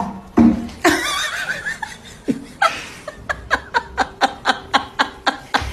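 A person laughing: a longer burst of laughter about half a second in, then a quick run of short bursts, about four a second, from about two seconds in until near the end.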